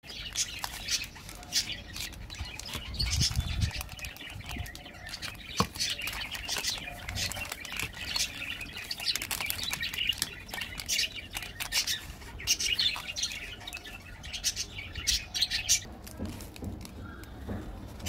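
Plastic and foil chocolate-bar wrappers crinkling and rustling in irregular crackles as a handful of bars is handled, with a soft knock or two as bars are set down on the table.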